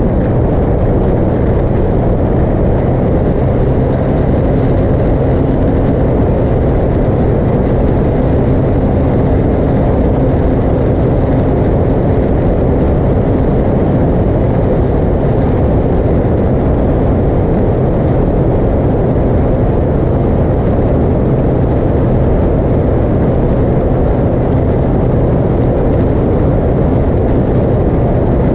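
Motorcycle riding at a steady cruising speed: constant heavy wind rush over the mounted camera's microphone, with a steady engine hum underneath that does not rise or fall.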